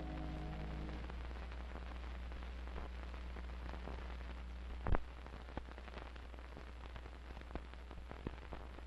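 The last held chord of the closing music dies away about a second in, leaving the steady low hum and hiss of an old film soundtrack, with scattered crackles and pops and one louder pop near the middle.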